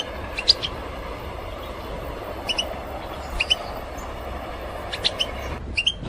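European goldfinch calls: short, high chirps in small clusters about every second or two, five clusters in all. Behind them runs a steady rushing background noise that cuts off suddenly shortly before the end.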